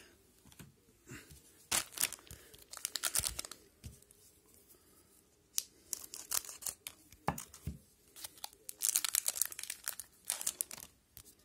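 Plastic wrapper of an O-Pee-Chee hockey card pack crinkling and tearing as it is handled and ripped open, in three clusters of short crackly bursts.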